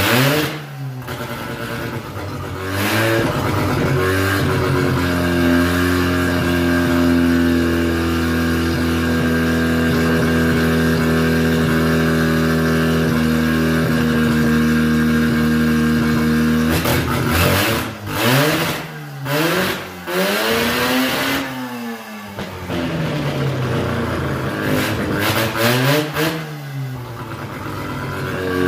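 Freshly rebuilt rotary engine running on a test stand on an untuned, problem Carter carburetor. It holds a steady fast idle for about a dozen seconds, then is revved up and back down several times in quick blips.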